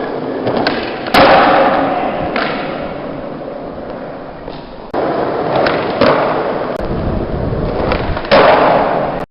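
Skateboard wheels rolling, with sharp clacks and thuds of the board striking the ground about a second in, twice around five to six seconds, and once near the end.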